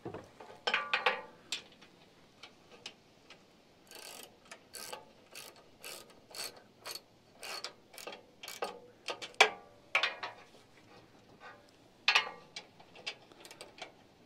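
Hand ratchet wrench clicking in short, irregular runs, with light metal clinks, as bolts are tightened into a roof-rack rail.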